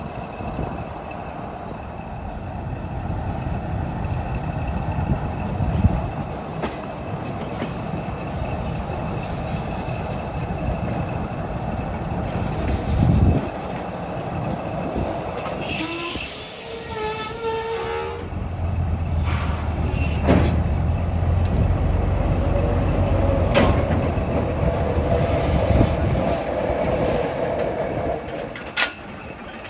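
Train running on the rails with a continuous rumble. About halfway through comes a brief high-pitched squeal, followed by a steady low hum and then a held mid-pitched tone near the end.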